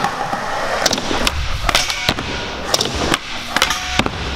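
Skateboard wheels rolling on a smooth concrete floor, with a series of sharp clacks as the board is popped and lands flip tricks, in a large indoor hall.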